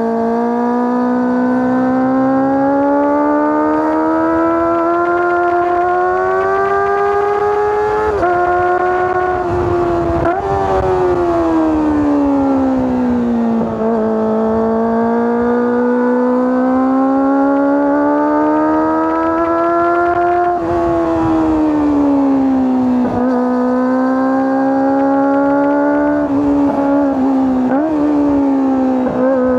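Kawasaki ZX-25R's 250 cc inline-four engine and exhaust on the move. The note climbs slowly and falls away several times as the bike speeds up and slows, with brief sharp flicks in pitch about a third of the way in and again near the end.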